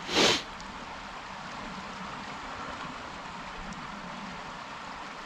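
Steady rushing of a creek's flowing water, running high after rain, with a short, loud swish at the very start.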